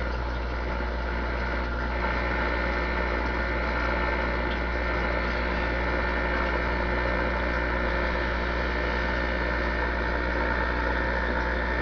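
Steady hum with hiss from a DAK Mark IX CB radio's speaker, with no voice on the channel.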